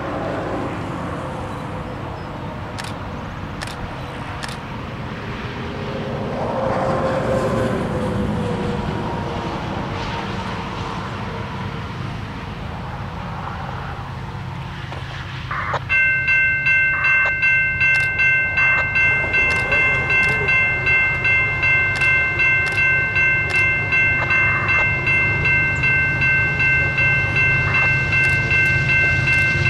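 Approaching diesel freight locomotives rumbling, then about halfway through the lead locomotive sounds its multi-tone air horn in one long steady chord that is held to the end, its loudness pulsing about twice a second.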